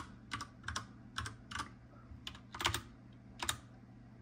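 Computer keyboard keys pressed one at a time, slowly and unevenly: about nine keystrokes of one-handed typing while signing in. A faint steady low hum runs beneath.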